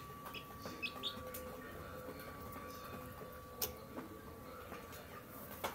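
Chicks peeping a few times, short high peeps in the first second or so, with a few sharp clicks over a faint steady hum.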